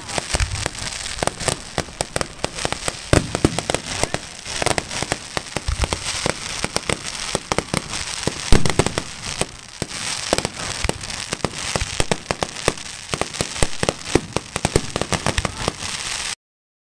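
Aerial fireworks going off in a dense run of bangs and crackling bursts, the loudest bang about eight and a half seconds in. The sound stops abruptly near the end.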